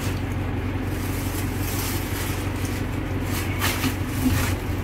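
Steady low hum of a vehicle engine idling, with a couple of brief rustles from the tie-down straps being pulled over the motorcycle in the second half.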